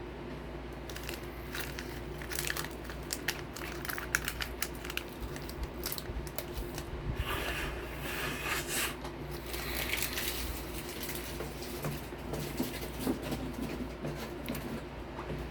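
Crinkling and tearing of a snack wrapper mixed with irregular crunching bites and chewing of Gosomi crackers, over a steady low hum.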